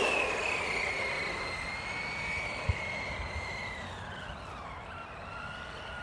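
JLB Racing Bison electric RC truggy's motor and gears whining as it drives off. The high whine holds its pitch, drops about four seconds in, then climbs a little near the end, growing fainter as the truck gets farther away. A short tap comes about two and a half seconds in.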